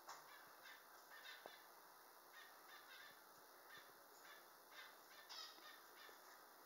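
Near silence: room tone with a few faint, short rustles and a small tick about a second and a half in.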